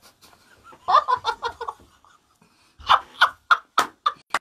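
A small group of people laughing in two bursts: a quick run of ha-ha pulses about a second in, then sharper separate laughs from about three seconds in.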